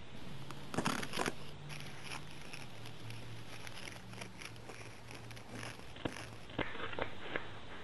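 Crisp crunching and crackling of an onion being cut in half and its papery skin peeled off. There are a few sharp crunches about a second in, scattered smaller crackles, and a cluster of crunches near the end, over a low steady hum.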